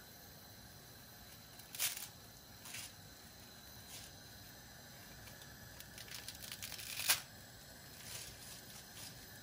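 Dry reshteh noodle sticks clicking and rattling against each other as handfuls are spread over a pot of soup, with sharp clicks about two seconds in and just after seven seconds and a run of smaller clicks leading up to the second.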